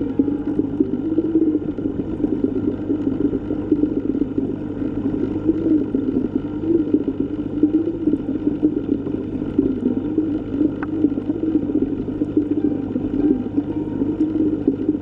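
Underwater water ambience: a steady, muffled low rushing and churning of water, with a brief thin sound about eleven seconds in.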